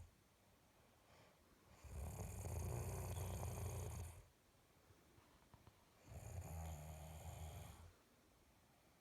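A sleeping pet snoring: two long snores, each about two seconds, with quiet pauses between them.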